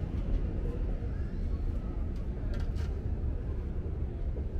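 City street ambience: a steady low rumble of traffic and urban noise, with a couple of brief clicks a little past halfway.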